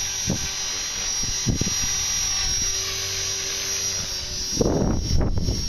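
Align T-Rex 450 Pro V2 electric RC helicopter hovering: a steady high whine with a lower hum from the spinning rotor head. The main blades are out of track after a blade strike, which is taken for the cause of the noise. The hum drops away about four and a half seconds in as a short rush of low noise comes in.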